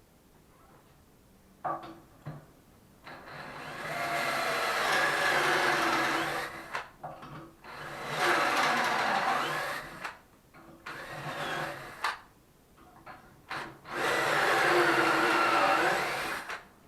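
Handheld electric drill running in three bursts of two to three seconds each, as when boring dowel holes into wood. Its pitch sags under load and drops as it spins down at the end of each run, with short clicks and knocks between the runs.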